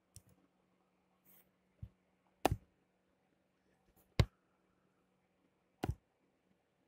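Computer mouse clicking: three sharp clicks about a second and a half apart, with a couple of fainter ticks before them.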